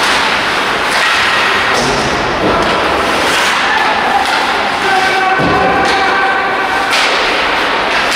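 Ice hockey play in a rink: the puck and players thudding against the boards and sticks clacking, several sharp knocks over a busy din with players calling out.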